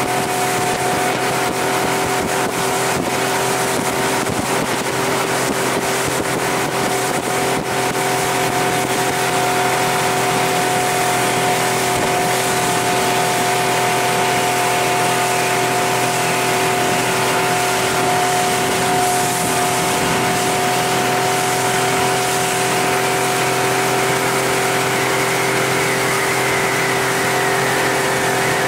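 Honda 50 hp four-stroke outboard running at a steady cruising speed, its even hum holding one pitch over a constant rush of wind and water as the boat moves.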